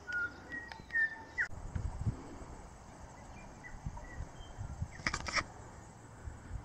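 Outdoor ambience with a bird's short whistled notes in the first second and a half, intermittent low thumps, and a brief scratchy burst about five seconds in.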